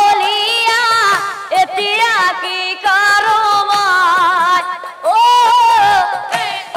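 A high voice singing a nagara naam devotional folk melody, holding long notes with heavy vibrato and sliding ornaments; a strong new phrase starts about five seconds in.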